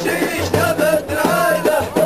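Ahidous singing: a chorus of men chanting together in short, repeated phrases whose pitch arches up and down.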